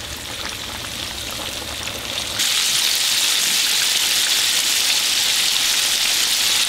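Floured bone-in chicken deep-frying in hot oil in a cast iron skillet: a steady sizzling hiss of bubbling oil, which jumps suddenly louder about two and a half seconds in and holds there.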